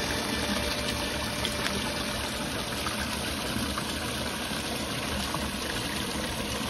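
Spring water pouring steadily from a pipe and splashing onto the rocks below.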